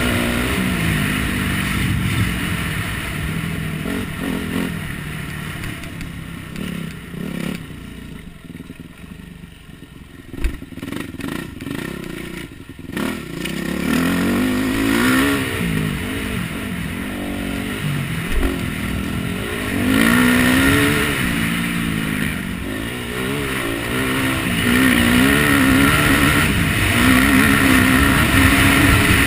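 Dirt bike engine revving up and down as the bike is ridden round a motocross track, over a rush of wind noise. About a third of the way in the throttle eases off for several seconds and the engine goes quieter. It then opens up again, climbing and falling in pitch over and over.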